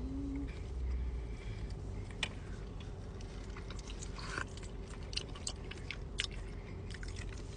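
Close-miked biting and chewing of a sauced chicken wing, with scattered sharp wet mouth clicks and smacks.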